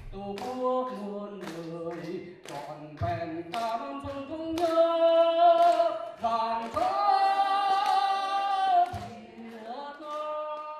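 Voices singing a melody with long held notes, over a regular beat of sharp strikes.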